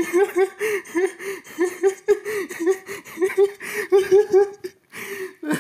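A person laughing in a long, steady run of short, high-pitched "ha" bursts, about three or four a second. The laughter breaks off briefly near the end and then starts again.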